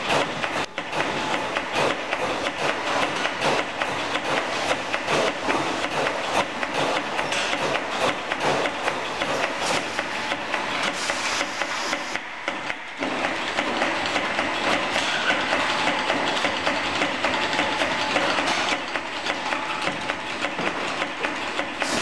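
Laub/Hunt inline filling machine running, with eight fill heads over a conveyor of cartons: a dense, fast clatter of clicks and knocks that dips briefly about halfway through.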